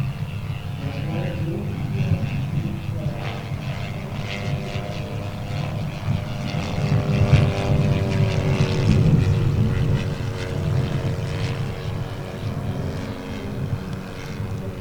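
Large RC scale biplane's 85 cc four-stroke engine and propeller running in flight, the engine note sliding up and down in pitch as the plane moves about. Strong wind rumbles on the microphone throughout.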